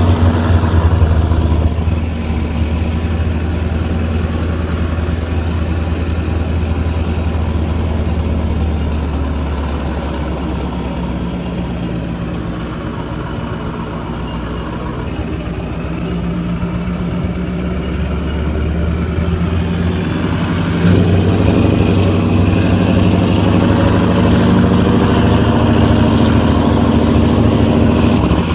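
Mack V8 diesel truck engine pulling a trailer loaded with a bulldozer, heard from the load behind the cab with its twin exhaust stacks. The steady engine note eases off around ten seconds in, then comes back louder and higher about twenty-one seconds in as the throttle goes on again.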